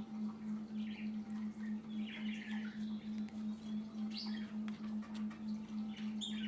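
Trading cards being handled and flipped through, with soft clicks and short scratchy rustles, over a steady low hum that pulses about five times a second.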